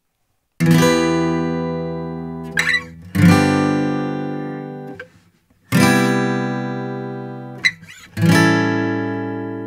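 Acoustic guitar strumming four chords, each left to ring and fade. Between chords there are short fret squeaks from the fingers sliding along the strings. The squeaks are heard unprocessed, with the de-esser bypassed.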